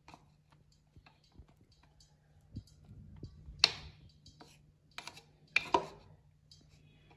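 White plastic spoon knocking against an orange plastic mixing bowl as flour is tossed over chicken pieces: scattered light clicks and taps, the loudest about three and a half seconds in and two more just before six seconds.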